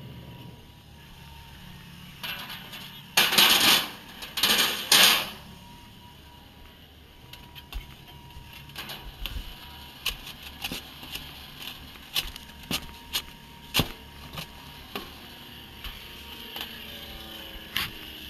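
Ice being shovelled into an aluminium fish hold on a boat: three loud scraping rushes a few seconds in, then scattered sharp clicks and knocks of ice and the plastic scoop against metal.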